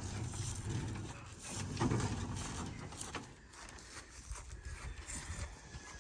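Scrap-built wooden chicken tractor, partly covered in tin, being moved on its wheels: an uneven rumbling with rattles and knocks, loudest about two seconds in.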